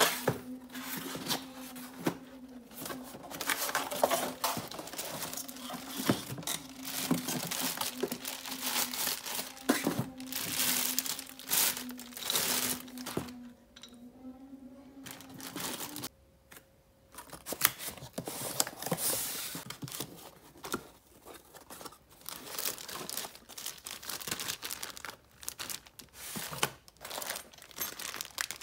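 Plastic packaging being handled: bubble wrap and zip-lock bags crinkle, and cardboard and foam inserts rustle and scrape, in irregular bursts. A steady low hum runs underneath for about the first half, then stops.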